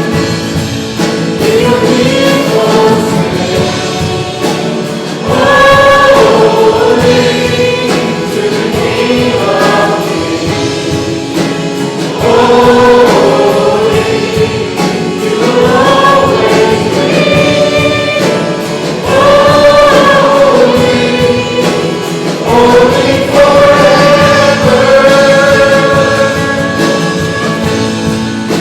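Congregational worship singing: many voices singing a hymn together with instrumental accompaniment, in phrases of held notes.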